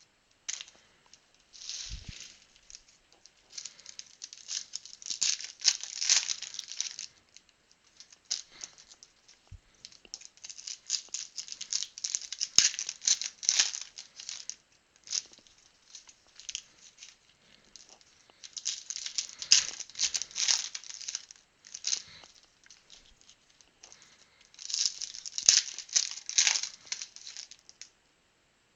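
Trading-card pack wrappers being torn open and crinkled by hand, in several bouts of crackling separated by short pauses.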